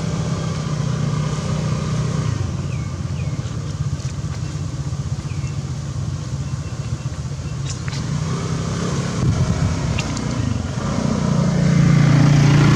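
A motor engine running steadily in the background with a low hum, growing louder near the end. A few faint short chirps and clicks sound over it.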